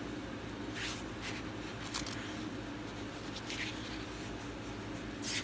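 Pages of a paperback comic book turned by hand: several short papery rustles over a steady low hum.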